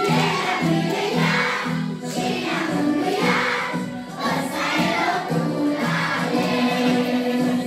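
Children's choir singing a song together in unison, many young voices in phrases over a steady low accompaniment.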